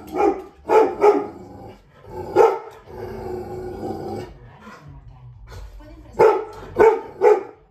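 Large black dog barking in short runs of two or three barks, with one longer drawn-out sound between about two and a half and four seconds in. She is barking at an unfamiliar new object, a freshly unboxed artificial Christmas tree.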